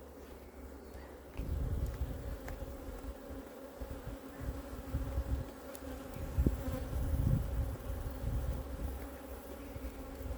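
Honeybees buzzing in a steady hum over an open hive during an inspection. About a second and a half in, an uneven low rumble joins in and stays.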